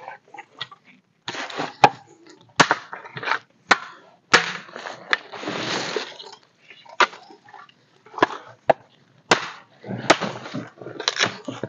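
Dry firewood sticks being snapped and knocked together by hand, a string of sharp irregular cracks mixed with short bursts of rustling.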